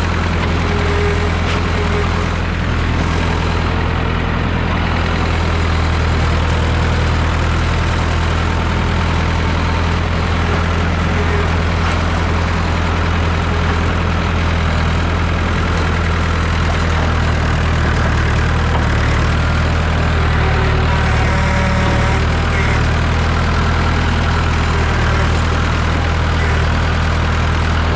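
1969 Massey Ferguson 3165 backhoe tractor's engine running steadily, an even, unchanging engine note.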